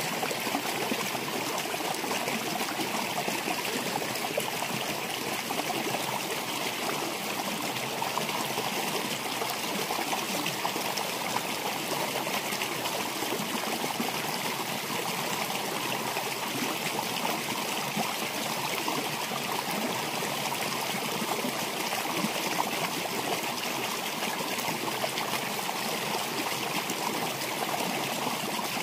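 Water of a shallow rocky stream flowing steadily around boulders, a continuous even rush with no distinct splashes.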